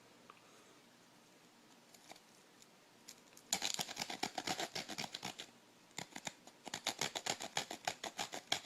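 Small saw teeth on a stainless steel credit-card multitool sawing through a small piece of wood in rapid back-and-forth strokes, about five a second, starting a few seconds in, with a brief pause before a second run.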